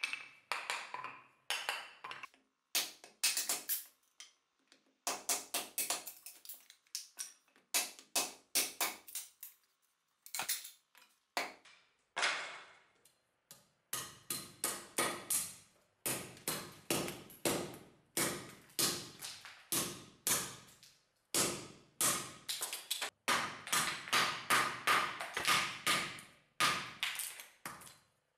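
Hatchet chopping and splitting small wooden boards on a stump chopping block: a long run of sharp chops and splitting cracks, with gaps at first, then coming several a second from about halfway on.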